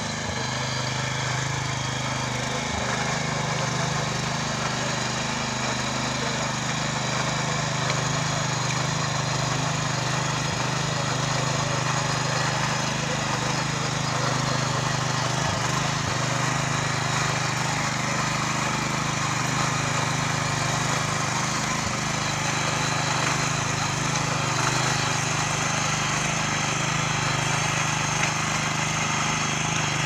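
Mini tiller's small single-cylinder petrol engine running steadily under load as the rotary tines churn through soil.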